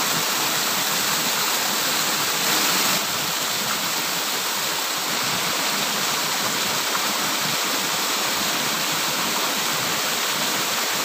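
Steady rushing of water from a small cascade at a pond's outflow, pouring into the pool below.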